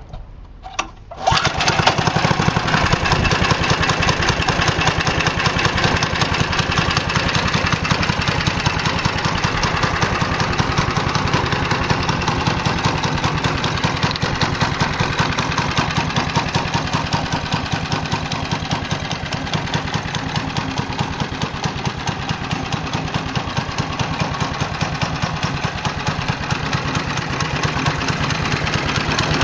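3 hp Briggs & Stratton single-cylinder engine on a go kart starting about a second in, then running steadily.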